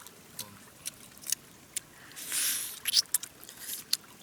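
Irregular sharp clicks and crackles, with a short hissing rustle a little over two seconds in.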